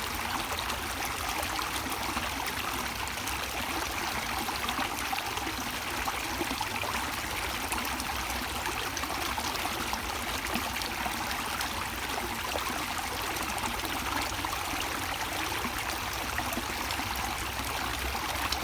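Running water of a stream flowing and splashing in a steady, even rush.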